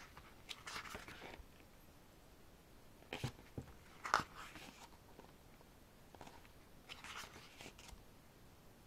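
Pages of a thick photobook being turned by hand: a few short paper rustles, with two sharper taps near the middle.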